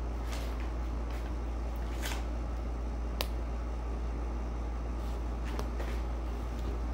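Steady low background hum with faint rustles and light clicks of movement, one sharper click about three seconds in.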